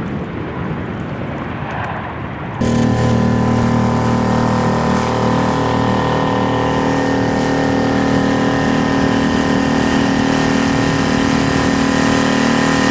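A rushing noise for the first couple of seconds, then a sudden cut to a boat's outboard motor running steadily at cruising speed.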